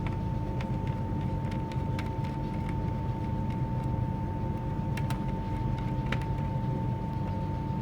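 Steady low background hum with a constant high whine, and scattered light clicks of small parts being handled.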